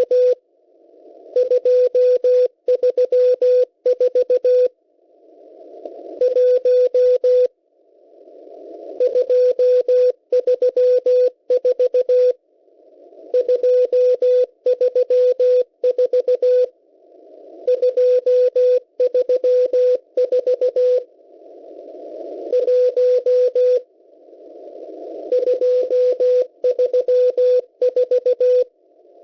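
Shortwave Morse code from the M12 numbers station: a single steady tone keyed in fast dots and dashes, sent in separate groups of figures every few seconds. Radio static swells up in each pause between groups and is cut off when the next group starts.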